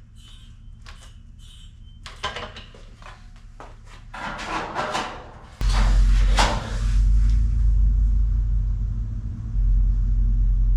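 Light clinks and scrapes of a steel flange strip being handled and worked. About halfway through, a loud steady low hum begins abruptly, with a few sharp clunks over it.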